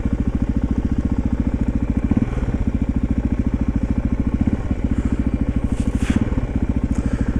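Yamaha XT350 enduro's single-cylinder four-stroke engine running steadily with a quick, even pulse, neither revving up nor down.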